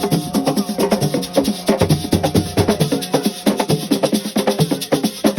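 Senegalese drum ensemble playing a fast assiko rhythm: rapid, sharp struck strokes, several a second, with ringing drum tones.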